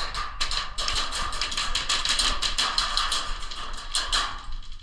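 Airsoft gunfire and BB hits: a dense, continuous rattle of sharp clicks, several a second and overlapping, that eases briefly near the end. The racket is loud enough to drown out voices.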